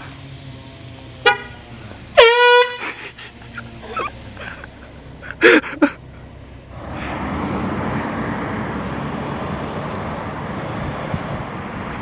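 An air horn gives a short blip, then a loud half-second blast about two seconds in. A steady rushing noise sets in about halfway through and keeps on.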